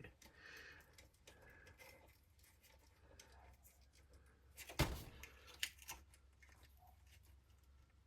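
Faint handling noises from small parts and wiring on an RC crawler, with a sharp click about five seconds in and a couple of lighter clicks just after.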